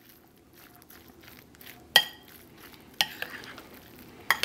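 A spoon stirring a thick, chunky guacamole in a bowl, with soft scraping throughout and a sharp ringing clink of the spoon against the bowl about two seconds in, another a second later, and a third near the end.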